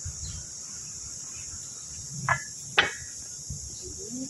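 A steady, high-pitched chorus of insects shrilling in the trees. About two and a half seconds in, two sharp knocks come half a second apart, the second louder.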